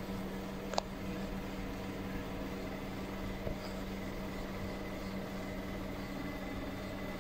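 Steady room hum with a faint high whine and hiss, and one sharp click about a second in.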